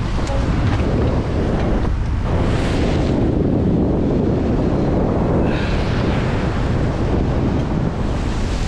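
Strong wind buffeting the microphone over rough sea surf washing against rocks, with a couple of louder hissing wave surges.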